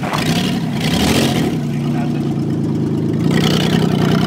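Ford minivan's engine revving as the van drives down off a pile of asphalt millings, with a rush of gravel and tyre noise about a second in. The engine grows louder near the end as the van comes closer.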